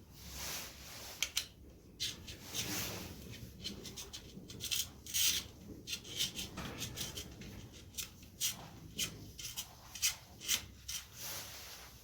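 Gear cable outer housing being pushed by hand through a mountain bike frame's internal cable routing, scraping and rubbing against the frame in short, irregular strokes.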